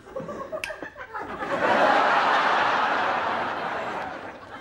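Studio audience laughing. The laughter swells quickly about a second and a half in and slowly dies away near the end.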